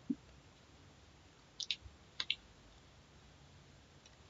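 A few light clicks from computer input: a soft low thump right at the start, then two quick pairs of sharp clicks about a second and a half and two seconds in, over quiet room tone.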